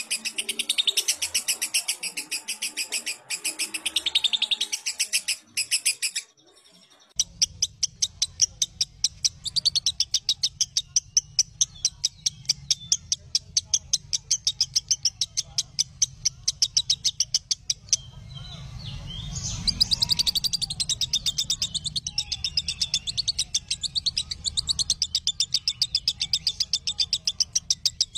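Lovebird chattering song: a long run of rapid, evenly repeated high chirps, broken by a short pause about six seconds in, then carrying on over a low background hum.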